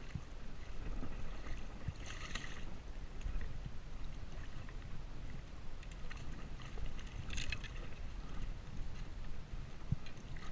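A low, steady rush of wind and water around a sit-on kayak at sea. There are two short scuffs, one about two seconds in and one past seven seconds, from the rod and line being handled.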